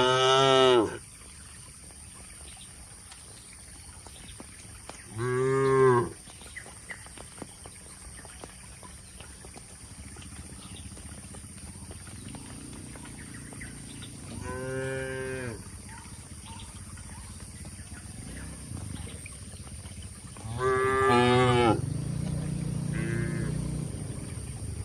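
Cattle mooing: four short moos spaced several seconds apart, with a lower, longer and quieter lowing right after the last one.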